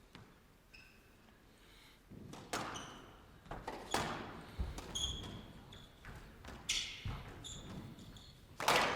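Squash rally: the ball is struck by rackets and smacks off the walls at irregular intervals, with short high squeaks of shoes on the court floor between shots. The rally starts about two seconds in.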